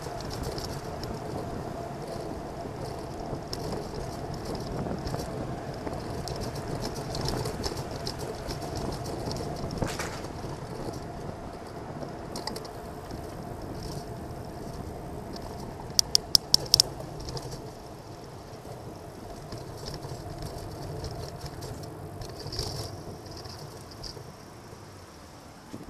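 Street noise heard from a camera on a moving bicycle: a steady rumble of road and wind with car traffic around. About two-thirds of the way through comes a quick run of about six sharp clicks.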